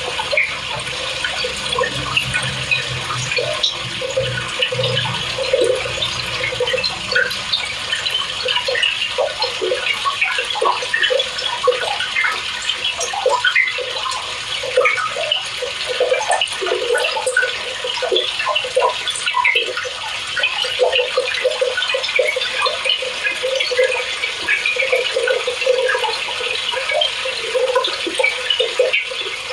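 Speed Queen TC5 top-load washer filling its tub with water for a normal eco cycle: a steady, horrible-sounding rush of water with constant splashing and gurgling.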